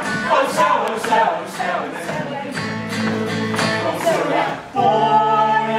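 Stage musical song: a cast singing together over instrumental accompaniment with a steady beat, ending in one long held sung note.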